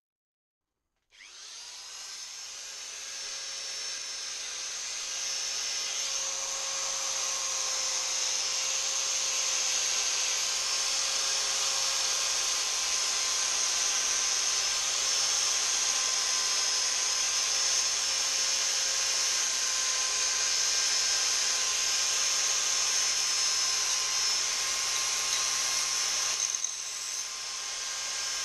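Handheld electric belt file (power file) running steadily with a steady whine while the edge of a small aluminium badge is sanded against the belt. It starts about a second in and dips briefly near the end before picking up again.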